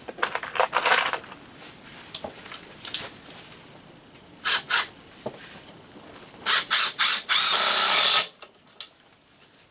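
Ryobi cordless driver driving screws into a wooden shelf frame in several short runs, the last and longest lasting about a second, near the end.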